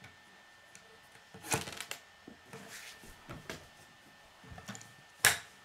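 Plastic K'nex connectors, rods and gear pieces clicking and clattering on a wooden tabletop as they are handled and pushed together: a scattered run of short clicks and knocks, with one sharp click near the end the loudest.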